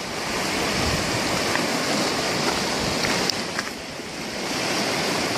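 Steady rushing of river water, with a few faint clicks over it; the rush dips briefly a little past the middle.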